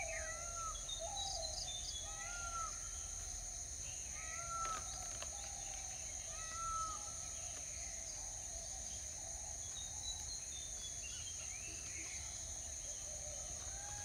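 Outdoor birdsong over a steady, high insect drone: a short arched whistle repeats about four times in the first seven seconds, with scattered higher chirps later and one more arched call near the end.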